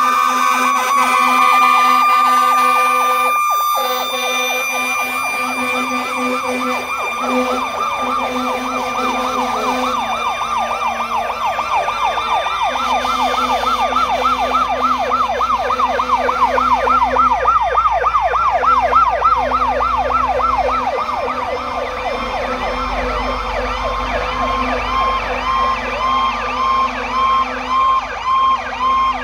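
Fire truck sirens sounding as the trucks pass. A steady held tone at first gives way to a rapid wavering yelp, then to an evenly pulsing tone near the end, over a low engine rumble.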